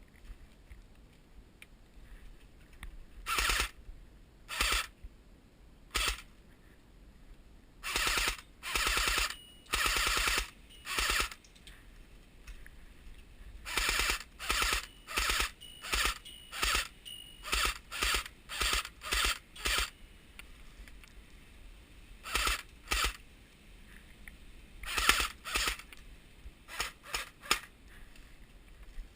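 Airsoft AK-47 rifle firing on full auto in repeated short bursts, each a rapid rattle of shots, the longest about a second, with pauses between bursts.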